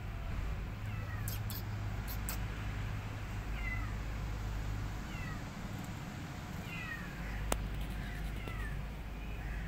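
A kitten meowing over and over: short, high-pitched meows, each falling in pitch, every second or two.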